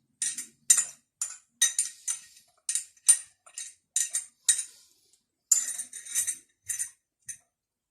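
Metal utensil clinking against a cooking pot or dish: a run of short, sharp clinks about two a second, with a brief pause about five seconds in.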